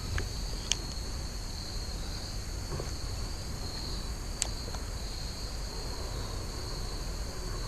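Steady high-pitched chorus of insects buzzing, with two brief sharp clicks, one near the start and one about halfway through.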